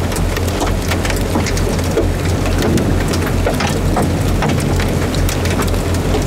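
Hail and rain falling, with many scattered sharp ticks of hailstones striking, over a steady low rumble.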